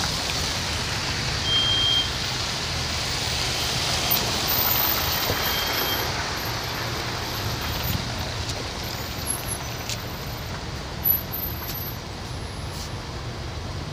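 Slow, congested city traffic on a wet, slushy road: engines running and tyres hissing on the wet surface. A short high beep sounds about a second and a half in, and a sharp click near the eleven-second mark.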